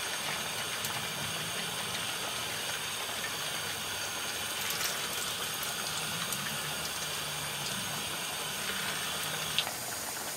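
Rice-and-minced-meat kofta fingers frying in hot oil in a pan, a steady sizzling hiss with a brief click near the end.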